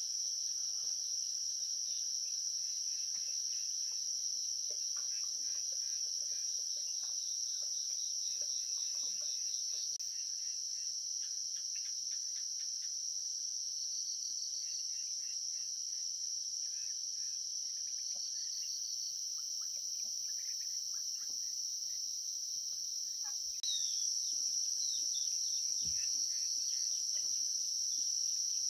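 A steady, high-pitched chorus of insects droning without a break, with faint small clicks and a few soft bird chirps now and then.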